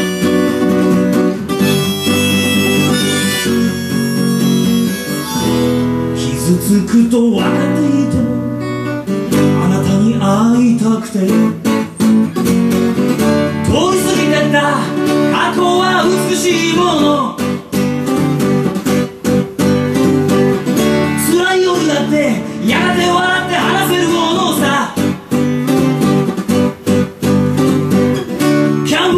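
Live acoustic music: a harmonica line over strummed acoustic guitar for the first several seconds, then a man singing with the strummed guitar.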